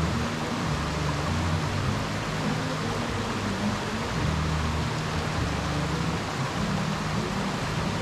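Steady rushing of a waterfall, with low droning notes underneath that shift in pitch every second or two.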